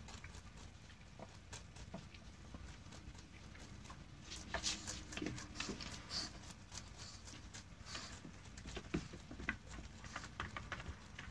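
Mini Rex rabbit chewing fresh leafy greens: a rapid run of small, crisp crunching clicks, faint at first and louder from about four seconds in.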